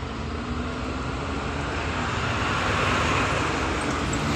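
Diesel engine of a Case 580N backhoe loader running steadily, growing a little louder about two seconds in.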